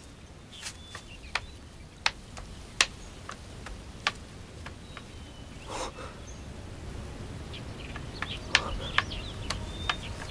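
Outdoor garden ambience with faint bird chirps over a low steady background, punctuated by scattered sharp taps and knocks that cluster near the end.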